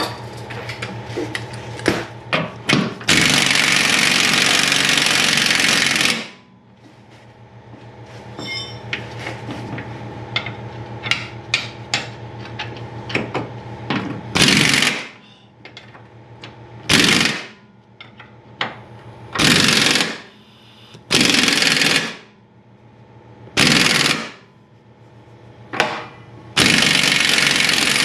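Impact wrench hammering at a seized, rusted control-arm nut in repeated bursts: a few clanks, then one long burst of about three seconds, then shorter bursts of about a second every two or three seconds. A steady hum runs underneath.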